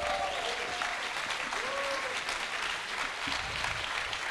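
Large audience applauding steadily, with a couple of voices cheering over the clapping at the start and again after about a second and a half.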